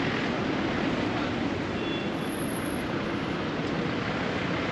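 Steady traffic noise, an even wash of sound without a clear single event.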